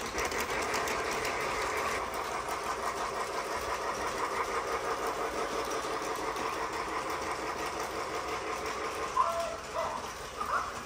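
Battery-powered Lionel toy train running steadily around its track: the even whir of its small electric motor and wheels.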